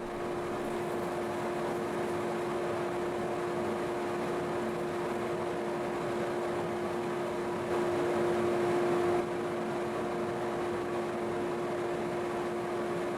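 Steady hum of an electric shop motor, with one constant tone, getting a little louder for a moment past the middle.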